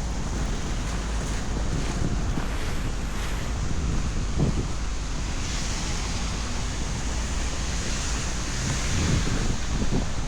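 Outdoor street noise: a steady rushing hiss with a low rumble, with wind buffeting the microphone. The hiss brightens about halfway through, like a vehicle's tyres passing on a wet, slushy road.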